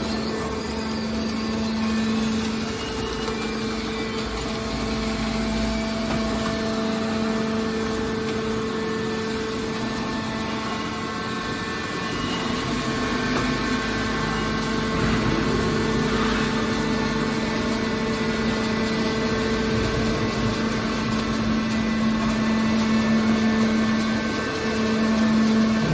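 Hydraulic scrap metal baler's power unit running, a steady pitched hum that grows stronger and weaker a few times as the load on the pump changes.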